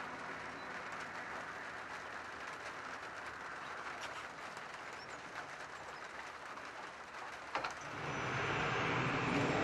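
Jet engines of a taxiing Airbus A319 airliner: a steady, distant rushing hum. Near the end there is a click, and then a louder, deeper jet-engine rumble sets in.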